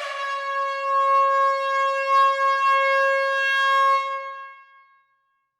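Air horn sounded in an enclosed hall: one long, steady blast of about four seconds on a single held note with many overtones, fading away over about the last second.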